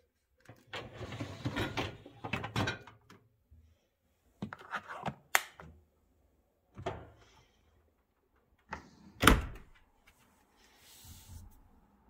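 Miele G7310SC dishwasher's loaded racks being slid in on their rails, dishes and wire baskets clattering, then several separate knocks and the door shut with a thunk about nine seconds in, the loudest sound.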